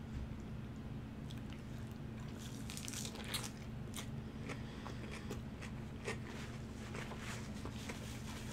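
Biting into and chewing an In-N-Out 3x3 burger wrapped in lettuce (protein style): repeated crisp crunches of lettuce, starting about a second in, with the two strongest a few seconds apart.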